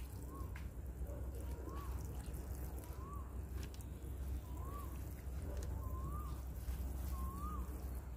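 Water sprinkling from a watering can's rose onto potting soil in plastic pots, a faint even patter. Over it a bird repeats a short rising-and-falling call about every second and a half.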